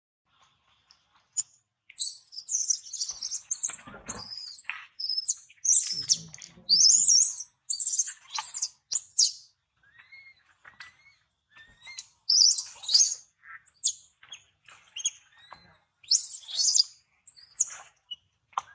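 Baby macaque giving rapid, high-pitched squealing cries in quick runs with short pauses, the distress calls of a hurt infant. A few low rustles and bumps come from the undergrowth.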